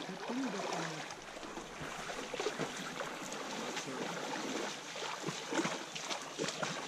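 People wading through a shallow stream, water sloshing and splashing around their legs at each step, over the steady run of the stream.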